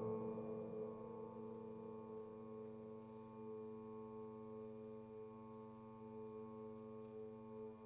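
Quiet electronic sine-wave drone: several steady pitches held together as a chord, with the tail of a louder passage fading out in the first second.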